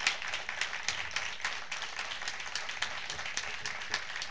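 An audience applauding: many hands clapping in a steady, dense run.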